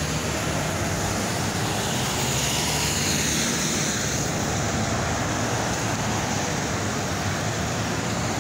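Steady road traffic: cars and a box truck passing close by, tyre and engine noise, with one vehicle's pass swelling and fading about three to four seconds in.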